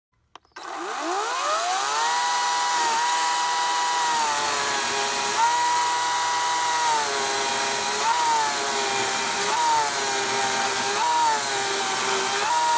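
EGO CS1800 56-volt brushless cordless chainsaw spinning up with a rising whine, then running at full speed. From about seven seconds in it cuts through a log, and its pitch dips again and again as the chain bites into the wood.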